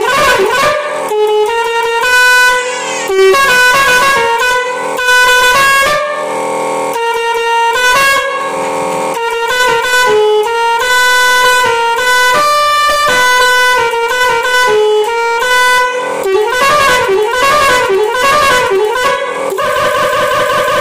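Six-trumpet musical pressure horn set, fed by an electric compressor, played from its push-button switch box: a tune of separate horn notes stepping up and down in pitch. A warbling stretch comes near the end, then several trumpets sound together as a chord.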